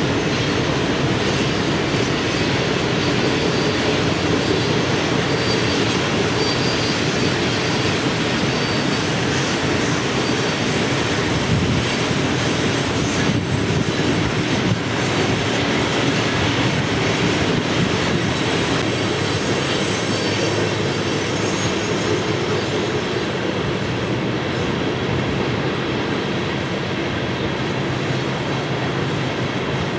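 Loaded coal hopper cars of a freight train rolling past steadily, their wheels rumbling and clattering on the rails, with faint high wheel squeals now and then.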